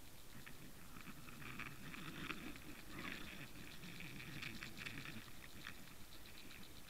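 Underwater sound picked up by a submerged camera: a faint low rumble of moving water with dense, irregular crackling and clicking.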